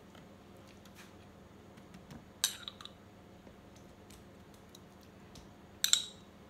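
A metal spoon clinking against a glass sauce jar and a metal roasting tray as sauce is spooned over vegetables: two sharp, briefly ringing clinks, about two and a half seconds in and again near the end, with faint ticks between.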